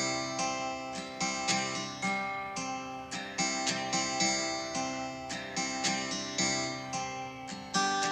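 Background music of plucked string notes in a steady rhythm, about two notes a second, each note ringing and fading.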